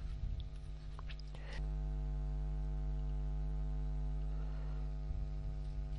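Steady electrical mains hum with its overtones, growing louder about one and a half seconds in, with a couple of faint clicks.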